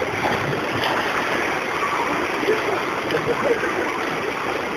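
Sea surf washing steadily on the shore, a continuous rushing of water, with faint indistinct voices mixed in.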